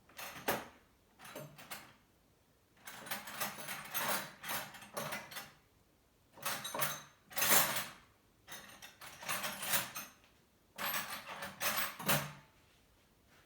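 Rummaging through metal hand tools: loose tools clattering and clinking in about five separate bursts, each one to two seconds long.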